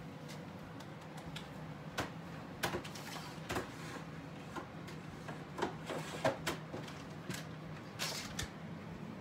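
Handling noise from a handheld phone being held and moved: scattered light clicks and knocks, a few at a time and irregularly spaced, over a steady low hum.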